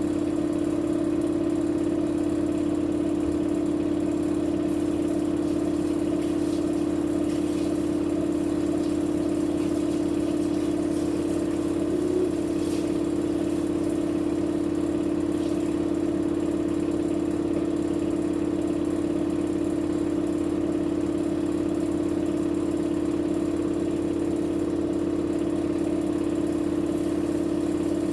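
Electrolux washing machine spinning its drum at a steady speed, giving a steady hum that holds one pitch throughout.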